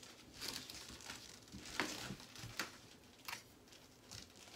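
Faint rustling and scratching of fingers and a metal-pronged teasing comb working through long hair as the teased ponytail is smoothed, with a few sharper scratches.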